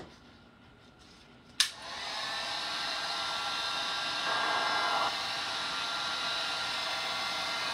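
Handheld electric heat gun switched on with a click about one and a half seconds in, then blowing steadily with a faint motor whine. It is held over freshly poured resin to pop air bubbles.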